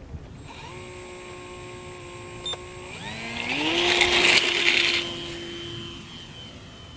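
Small brushless electric motor and propeller of a mini RC model Cessna 182 whining at low throttle, then rising in pitch about three seconds in as the throttle is opened for the takeoff. A loud rushing noise comes with the climb in pitch for about two seconds, then the whine holds steady and fades.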